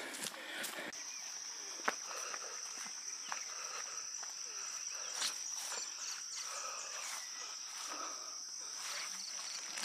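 Steady, high-pitched drone of insects in the grass, starting suddenly about a second in, with a few scattered footsteps on the trail.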